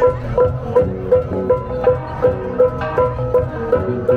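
Central Highlands cồng chiêng gong ensemble: several hand-held gongs struck in an interlocking, repeating pattern of different pitches, with one higher gong beating steadily a little under three times a second over lower ringing gongs.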